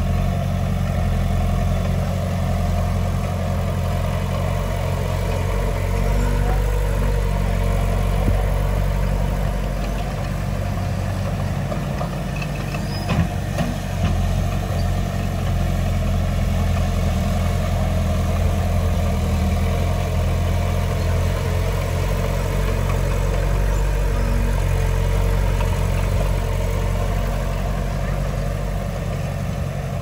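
Heavy diesel engine of earthmoving machinery running steadily at an even pitch, with a few short knocks near the middle.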